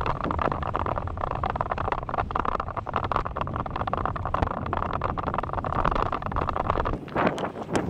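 Wind rushing over the microphone on a fast bicycle descent, with constant small rattles and clicks. The noise drops briefly about seven seconds in.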